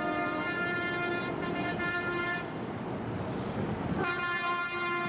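A horn sounding in long, steady, multi-toned blasts: one held note stops about two and a half seconds in, and after a short break a second blast begins about four seconds in.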